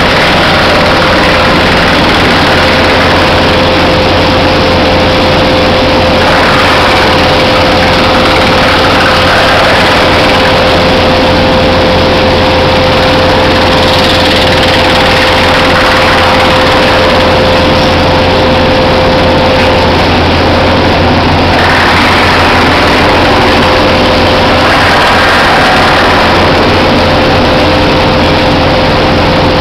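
Wood-chip processing machinery running: electric motors and a belt conveyor carrying wood chips, a loud steady drone with a constant mid-pitched hum.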